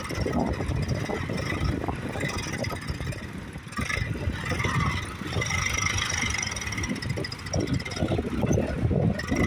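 An Eicher diesel tractor engine works hard at full power, hauling a loaded trolley through loose sand. The load is heavy enough to lift the tractor's front wheels.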